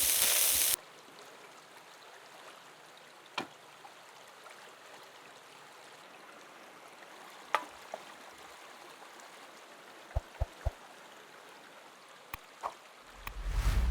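Food sizzling loudly in a pan, cut off suddenly under a second in, then a river stream flowing steadily with a few light clicks and knocks, including three quick taps about ten seconds in and a louder low knock near the end.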